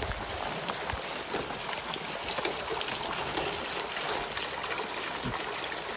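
Rainwater trickling and running through a gutter downspout and PVC drain pipe, with many small drips and ticks of rain over a steady wash of water.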